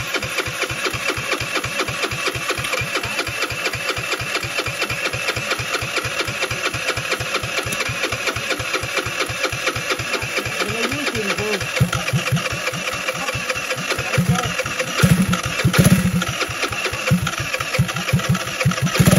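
Small engine running with an even, fast beat; from about twelve seconds in it gets louder, with several short bursts toward the end.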